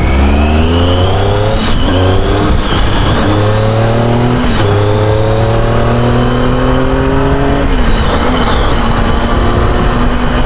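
Triumph Tiger 800's three-cylinder engine pulling away and accelerating hard, its pitch climbing in each gear and dropping back at several upshifts, then holding steady at cruising speed near the end.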